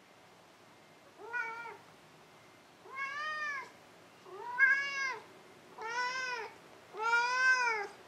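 Domestic cat meowing five times, about a second and a half apart, each meow rising and then falling in pitch, the last one the longest.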